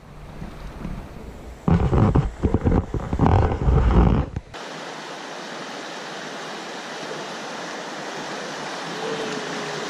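Irregular low rumbling on the microphone for about three seconds. Then the sound changes suddenly to a steady rush of river water running over a shallow riffle, growing slightly louder toward the end.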